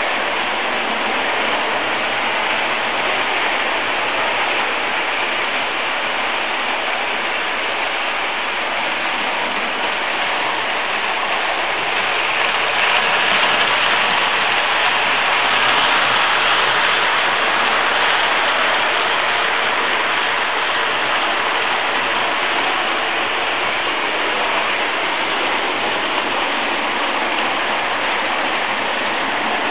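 HO-scale model train, a 4-8-2 Heavy Mountain steam locomotive pulling passenger cars, running on the layout's track with a steady rolling rush of wheels on rail. It grows a little louder about 13 to 16 seconds in as the locomotive passes close.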